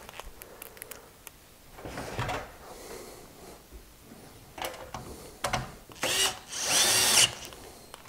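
Electric screwdriver running for about a second near the end, driving a mounting screw into a PC power supply, with short clicks and rattles of screw and metal case before it.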